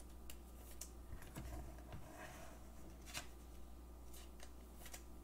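Faint handling of trading cards and packaging on a desk: light scattered clicks and a brief rustle about two seconds in, over a steady low hum.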